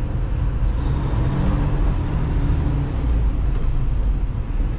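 Semi truck's diesel engine running at low speed as the rig turns slowly, a steady low rumble heard from inside the cab.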